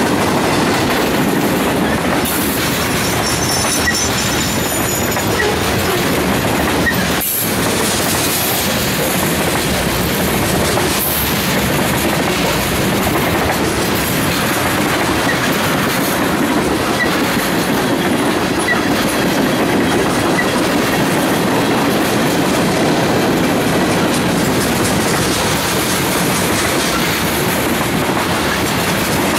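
Freight train cars rolling past: a loud, steady rumble of steel wheels on the rails.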